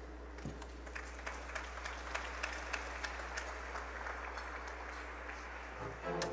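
Audience applauding steadily. Near the end a string ensemble starts playing.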